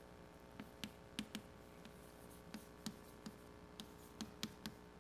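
Chalk writing on a blackboard: a run of short, irregular taps and clicks as symbols are written, about three a second, over a faint steady hum.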